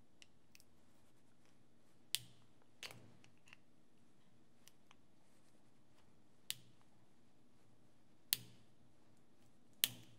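A flat screwdriver prying open the spot-welded sheet-metal gear-drive frame of a Braun Oral-B electric toothbrush: each spot weld lets go with a sharp snap, five in all, with small ticks of the blade on the metal between them.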